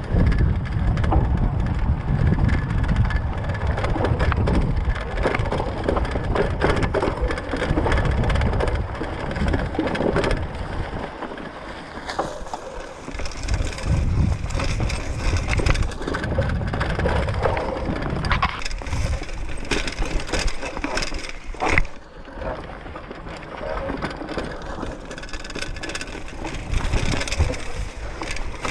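Mountain bike tyres rolling over a dirt trail strewn with dry fallen leaves and twigs, a continuous crackling crunch, under a low rumble on the microphone. One sharp click stands out about twenty-two seconds in.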